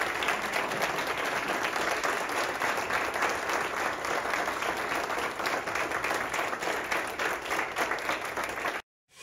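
A room of people applauding, a steady patter of many hands clapping, which cuts off suddenly near the end.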